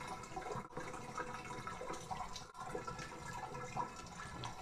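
Bathtub water running and dripping: a low, steady watery noise with small splashes and drips.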